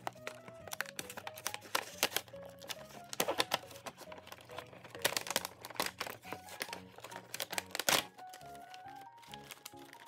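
Clear plastic blister packaging and cardboard of a toy box crinkling and clicking in irregular bursts as the box is opened, over background music with a simple stepping melody.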